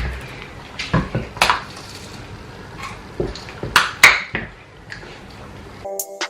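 Scattered clinks and knocks of plates and cutlery as people eat, with faint room noise between them. Near the end this cuts off suddenly and background music with held notes comes in.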